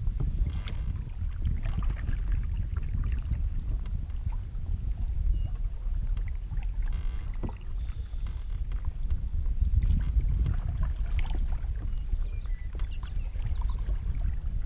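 Wind rumbling on the microphone over the sounds of canoe paddling: scattered light splashes and knocks of paddles in the water and against the hull.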